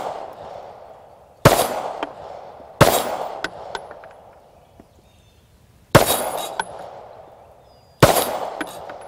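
Glock 19X 9mm pistol fired four times in slow, unevenly spaced shots, each report ringing out and fading over a second or more before the next.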